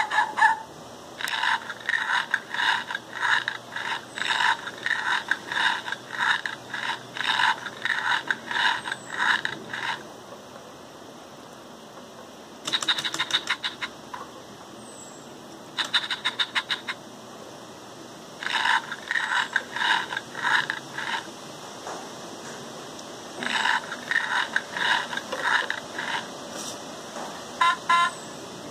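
LEGO Mindstorms EV3 robot puppy making a run of short, rasping strokes, a few a second, in several groups with pauses between.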